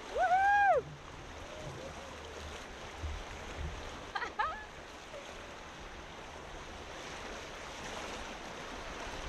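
River water rushing steadily around an inner tube riding small rapids. A short, loud voice call rises and falls in pitch in the first second, and brief high calls come about four seconds in.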